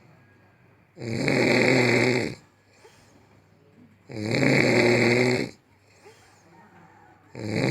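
A sleeping woman snoring: long snores of about a second and a half each, evenly spaced about three seconds apart, the third starting near the end.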